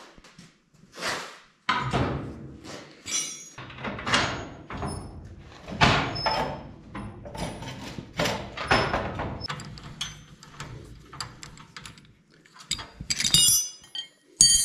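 Steel hitch section of a Melroe grain seeder being worked up and down on its newly welded hinge joint, with irregular metal clunks, scrapes and rattles, and a few ringing metallic clinks near the end.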